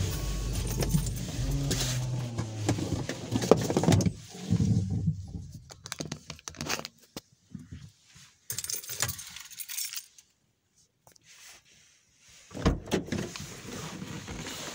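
A car engine running with a steady low hum, which stops about four seconds in. After it, keys jangle, with scattered clicks and rattles of handling in the car, a short quiet pause, and more rattling near the end.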